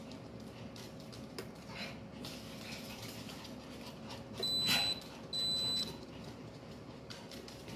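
Two high electronic beeps from a household device, each about half a second long and about a second apart, with a short noisy sound over the first. Light ticking of small dogs' claws on a wooden floor.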